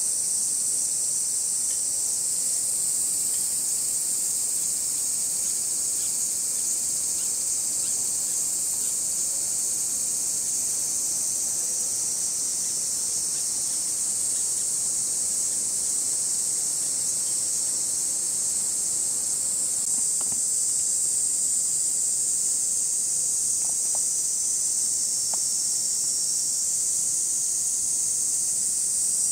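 A chorus of cicadas in one continuous, high-pitched drone that holds steady without pauses.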